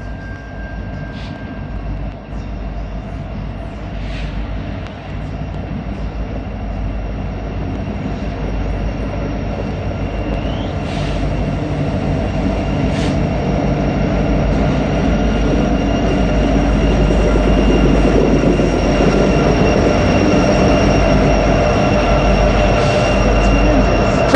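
Train approaching and running past, its low rumble growing steadily louder, with thin steady high-pitched wheel squeal and a few scattered clicks.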